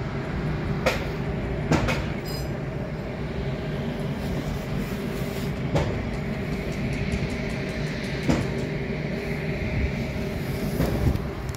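Steady machinery drone with a low hum and a higher hiss over it, broken by a handful of sharp knocks a few seconds apart.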